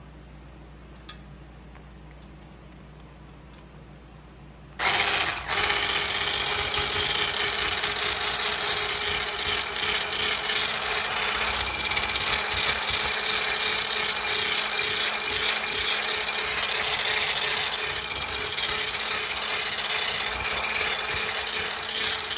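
Electric stick blender with a whisk attachment, switched on about five seconds in, then running steadily at a constant pitch as it whips thick, set body cream until it turns fluffy. Before it starts there is only quiet room tone and a faint click.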